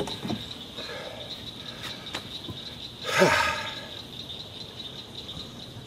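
Insects singing with a steady, high-pitched trill, with a short human vocal sound about three seconds in.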